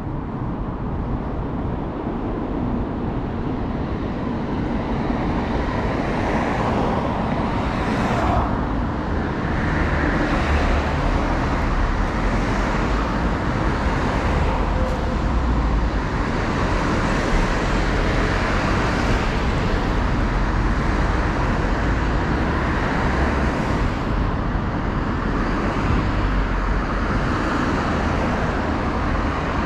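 Road traffic on a city street: cars passing steadily, with a constant low rumble and a few swells as vehicles go by.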